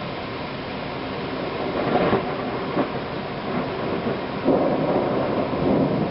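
Thunder rolling over a steady rush of rain. One swell comes about two seconds in and a sharp crack follows soon after. A longer, louder rumble starts a little after four seconds.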